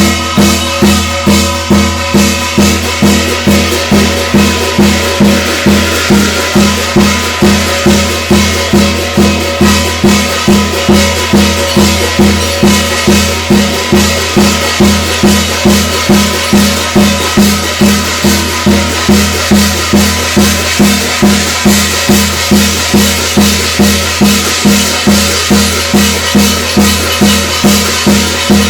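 Korean shamanic gut ritual music: drums beating steadily at about two strokes a second under sustained pitched tones.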